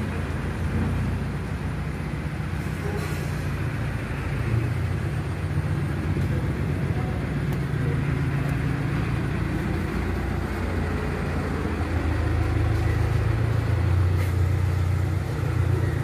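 A steady low mechanical rumble, a little louder for a few seconds near the end.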